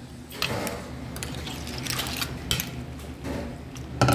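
Irregular clinks and rustles of tableware being handled, with a metal spoon or chopsticks being picked up, and a louder knock about four seconds in.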